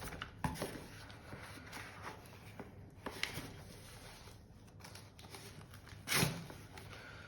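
Faint rustling and handling of cardboard and packaging material, with scattered light knocks and a louder scrape about six seconds in.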